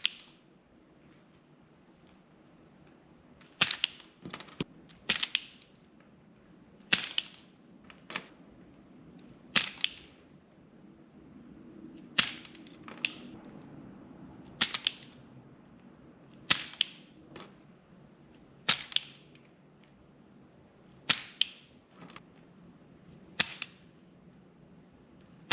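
Wire stripper snapping shut again and again as it strips the ends of short lengths of 12-gauge wire: about fourteen sharp snaps, spaced a second or two apart, some of them in quick pairs.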